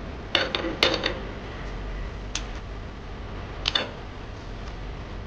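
Stainless-steel pan knocking and clinking against a gas stove's metal grate as it is shifted: a few sharp metallic knocks with short ringing, a cluster about half a second to a second in, one more around two seconds in and a double knock near four seconds.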